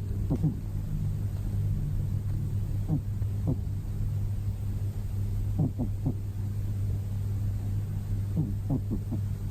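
A sleeping cat makes short, falling, squeaky little sounds in small clusters, about four times, over a steady low rumble.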